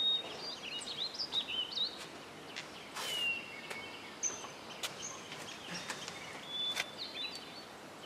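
Outdoor ambience: small birds chirping now and then over a steady background hiss, with a few brief soft clicks and rustles.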